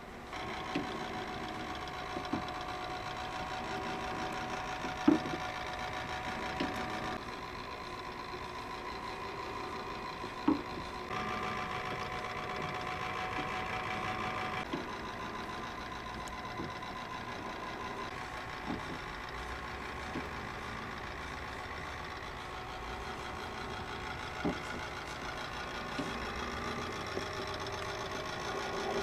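Electric-driven working model of a Watt beam steam engine running: a steady mechanical whine from its motor and gear train, with a few sharp clicks from the moving linkage, the loudest about five and ten seconds in.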